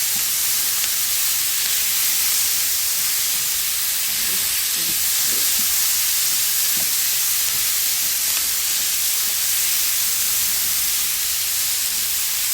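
Chopped tomatoes, chili pepper, onions and garlic sizzling steadily in hot olive oil in a frying pan.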